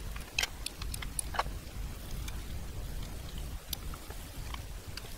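Screwdriver driving the end-cap screws into the small electric drive motor's metal housing: scattered light metallic clicks and taps, several in the first second and a half and a few more later, over a low steady rumble.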